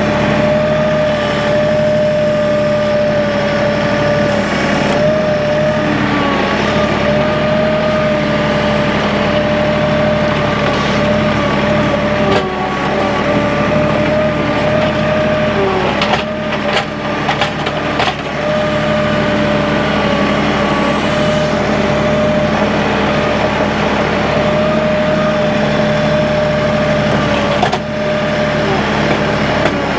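Tractor engine running steadily under load while it moves logs with its front grapple, with a few short knocks around the middle.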